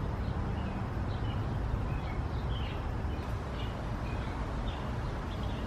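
Small birds chirping, short high chirps a few times a second, over a steady low rumble.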